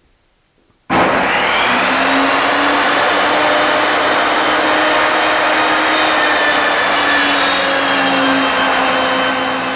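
Benchtop table saw switched on about a second in, its motor whining up to speed and then running loud and steady as a short block of 2x4 is ripped down to a 2x2.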